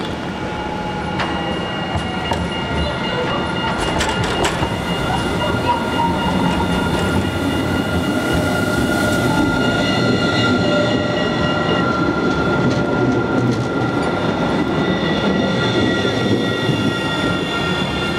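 Rotterdam RET city tram passing close by on curved street track: a steady rolling rumble that grows louder as it nears, with several high steady squealing tones from the wheels on the curve. A few sharp clicks about four seconds in.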